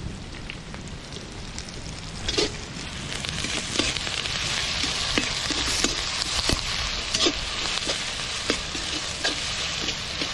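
Onions, curry leaves and tomatoes frying in oil in an iron kadai, with a steady sizzle that grows louder a few seconds in. A perforated metal spatula scrapes and clinks against the pan again and again as it stirs, so the tomatoes and onions sauté well.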